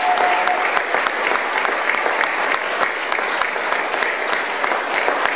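Audience applauding steadily, a dense wash of many people clapping.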